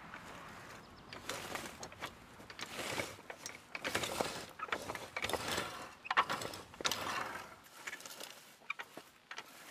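Double wheel hoe pushed through dry, cloddy soil: its sweeps scrape and crunch through the dirt in uneven strokes, with light clicks and rattles from the hoe's frame.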